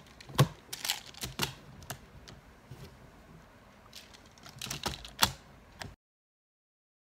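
Plastic magnetic building tiles clicking and clacking as they are handled, snapped together and stacked: a scatter of sharp clicks, with a cluster of them near the end. The sound cuts off abruptly about six seconds in.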